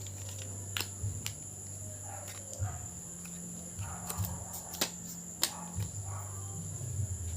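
Scattered light clicks and taps of laptop parts being handled during an SSD install, about six in all. Under them run a steady high-pitched tone and a low hum.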